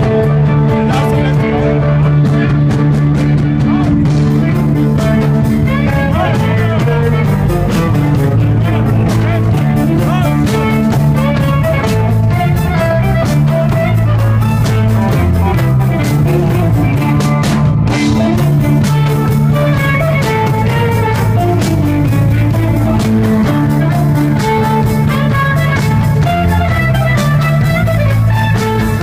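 Live rock band playing loudly, with electric guitars over sustained bass notes and a drum kit, heard from the crowd in a club.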